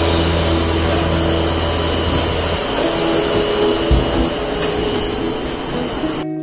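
Spindleless rotary veneer lathe running, peeling a log into a thin sheet of face/back plywood veneer: a loud, steady mechanical din with a hum through it. A low part of the hum drops out about two and a half seconds in.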